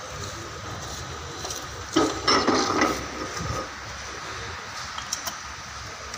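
Steel truck differential parts (gears, shaft and cast housing) clinking and scraping against each other as they are handled and fitted together by hand. There is a burst of clattering about two seconds in lasting about a second, and a couple of light clicks near the end.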